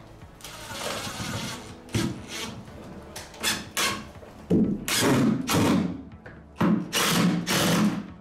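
Cordless drill-driver driving screws into timber stair boards. It runs in several short bursts, then two longer, louder runs in the second half as the screws are driven home.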